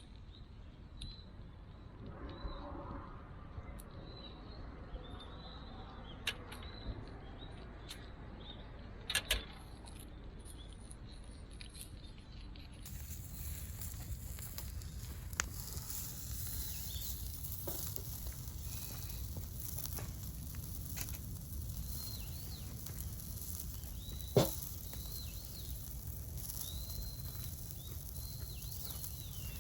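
Wood campfire crackling quietly with scattered sharp pops, two of them louder, while small birds chirp faintly.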